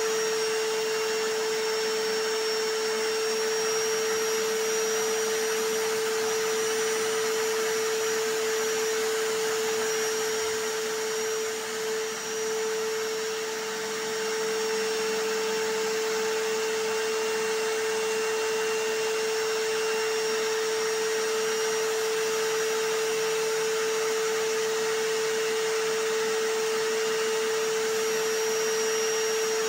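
Vacuum cleaner and hammer drill running together: a steady rushing noise with a constant motor hum. The noise dips briefly about twelve seconds in.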